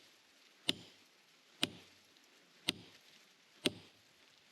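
A metal hand tool striking rock-hard mortar and stone with four sharp blows about a second apart. The material is as hard as concrete.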